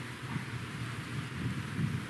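Wind buffeting the microphone outdoors: an irregular low rumble that swells in gusts toward the end, over a steady hiss.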